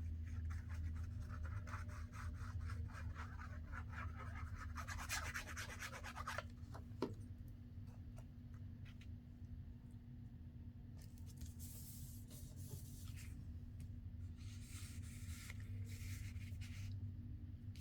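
Paper and cardstock being handled and rubbed: faint scratchy rustling for the first several seconds, a single tap about seven seconds in, then two stretches of paper sliding, over a steady low hum.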